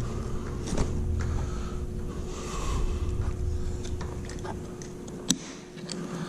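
Handguard parts and hardware being worked into place on a motorcycle handlebar: scattered clicks, scraping and rustling of metal and plastic, with one sharp click a little after five seconds in, over a low rumble and a steady faint hum.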